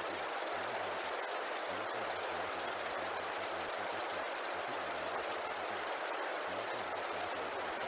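Steady rushing noise, like running water, holding an even level throughout, with a faint low warble beneath.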